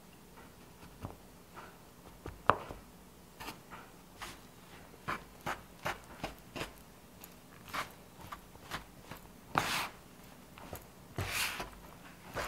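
Plastic bench scraper chopping and scraping through flour, cold butter and water on a wooden pastry board, mixing a pie-crust dough: irregular taps and knocks starting about two seconds in, with two longer scrapes near the end.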